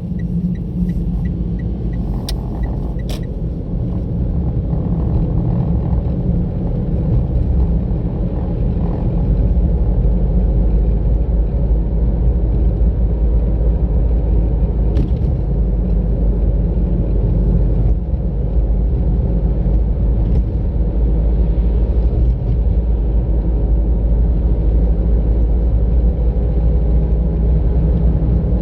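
Car driving on a road, recorded from inside the car: a steady low rumble of tyres and engine that gets louder about ten seconds in.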